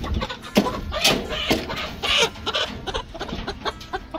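Rainbow Ranger broiler chickens clucking and calling in short, irregular bursts as they are caught by hand in their pen, loudest about a second to two and a half seconds in.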